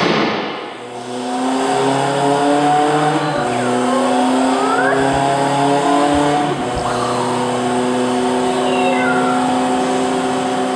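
Electronic drone soundscape opening with a sudden loud hit, then layered sustained tones that shift pitch every few seconds, with faint sweeping glides above them.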